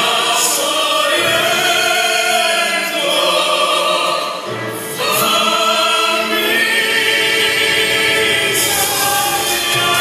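A vocal group of three men and a woman singing live in harmony, operatic pop with long held notes. The sound dips briefly about four and a half seconds in, then the voices come back in full.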